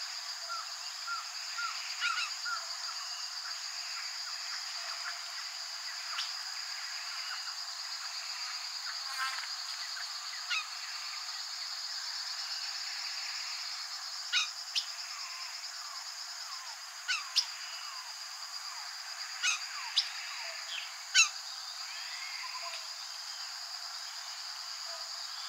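A South American cardinal (Paroaria) singing: a run of short whistled notes near the start, then scattered sharp, clear notes, the loudest in the second half. All of it sits over a steady high-pitched hiss.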